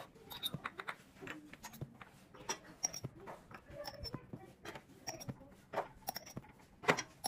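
Glass fire-cupping jars clinking and knocking as they are handled and set down one after another on bare skin: a quick, irregular run of light clicks and clinks, some with a short glassy ring.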